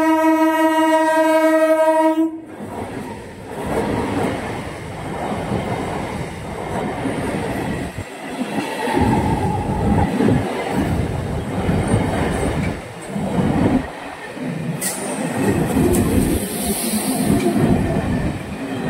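An electric (EMU) suburban local train sounds one steady horn blast that cuts off suddenly about two seconds in. The train then rushes past close by, its wheels clattering rhythmically over the rail joints.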